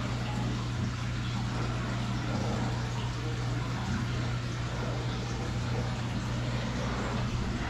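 Aquarium pump and water circulation running steadily: a continuous rush of water over a constant low hum.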